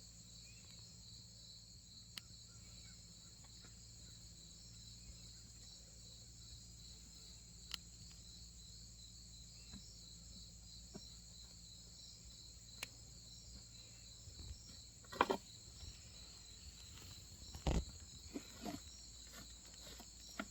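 Crickets chirping steadily in a high, fast-pulsing trill, with a few scattered clicks and knocks, the loudest about fifteen and eighteen seconds in.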